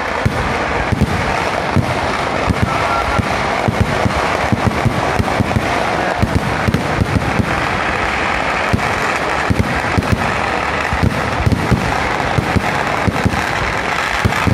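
Fireworks display going off in a continuous barrage: many sharp firecracker bangs each second over a steady crackling din, with no pause.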